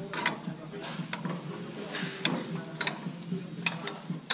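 Irregular metal clicks and clinks of a tractor's three-point hitch lower link arm and its fittings being handled as the arm is lined up with a weight box's mounting pin, over a low steady hum.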